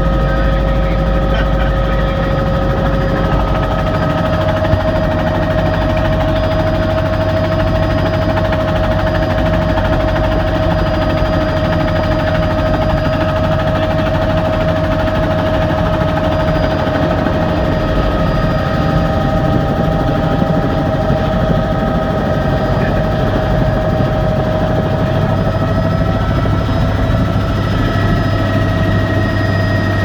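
Helicopter's turbine and rotor noise heard from inside the cabin: a loud, steady drone with a whine that shifts up a little in pitch about four seconds in.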